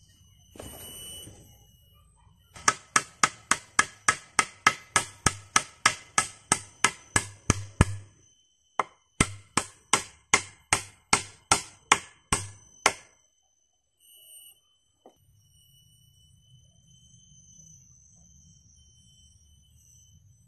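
Rapid, evenly spaced strikes of a tool on wood or bamboo, about four a second, in two runs of several seconds with a brief pause between. This is shelter-building work, chopping or hammering. A steady high whine runs underneath.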